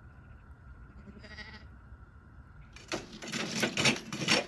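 A sheep bleats once, briefly, about a second in. From about three seconds in there is a run of loud metallic clinks and rattles as a solid-fuel stove's door and fittings are handled.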